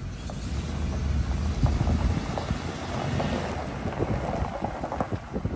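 Wind buffeting the microphone: an uneven low rumble that swells about a second and a half in, with scattered short knocks or crunches over it.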